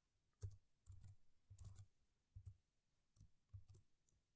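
Computer keyboard being typed on: faint, irregular keystroke clicks.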